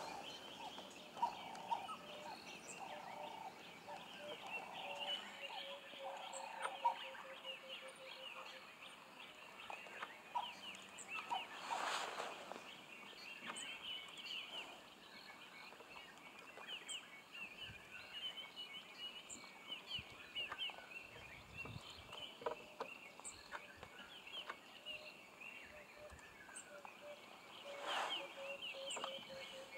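African wild dogs twittering at a kill: a steady stream of short, high, bird-like chirps. A run of rapid, evenly spaced lower pulses comes a few seconds in.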